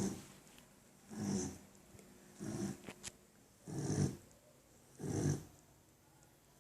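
Sleeping pit bull dog snoring, about five snores in a steady rhythm a little over a second apart, each a low rasp with an airy hiss.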